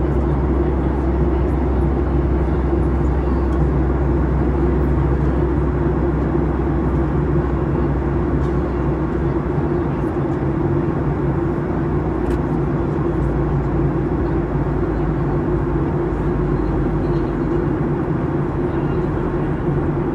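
Steady cabin noise of a jet airliner in flight: a low rumble with a hum on top from the engines and the airflow past the fuselage.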